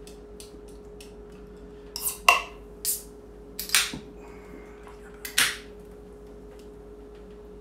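Aluminium energy-drink can being handled and cracked open: several sharp metallic clicks and short hisses, the loudest about two seconds in.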